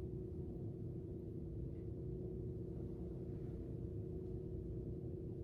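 A steady low hum holding one pitch.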